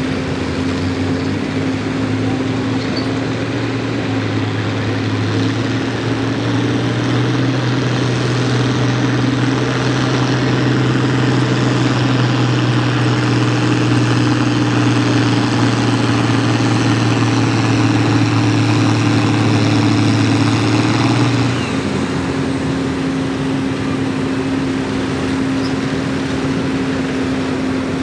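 International Harvester farm tractor's diesel engine at full throttle, pulling the weight-transfer sled with a steady, loud note that edges up in pitch early on. About three-quarters of the way through, the throttle drops to a lower, quieter steady run as the pull ends.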